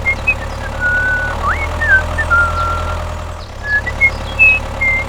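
Engine idling steadily with a low hum, and short high chirps and whistles scattered over it.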